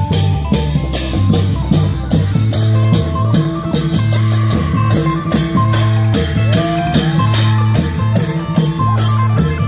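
Thai klong yao long-drum ensemble playing: deep long-drum beats under a melody line, with a sharp cymbal-like strike about three times a second keeping the beat.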